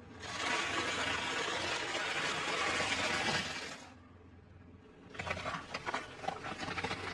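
Car tyre rolling over a heap of potato chips and crushing them: a dense crunching for about three and a half seconds. After a pause, a second, crackly spell of crushing with sharp snaps as the tyre rolls onto a row of small coloured objects.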